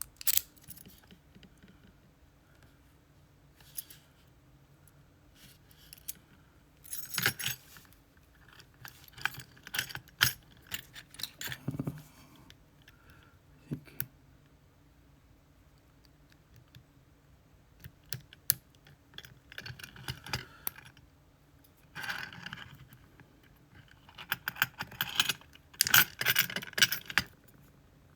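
Small metal lock parts and tools being handled while an Abus C83 lock is dismantled: scattered sharp clicks, taps and short bursts of light metallic rattling, with quiet gaps between, and a denser run of rattling near the end.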